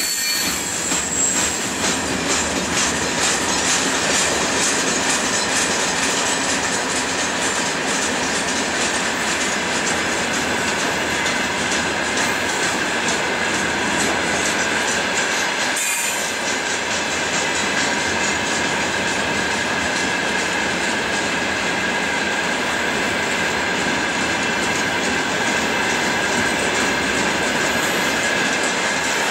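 Freight train of open gondola wagons rolling steadily past, wheels clattering over the rail joints with a steady high-pitched wheel squeal.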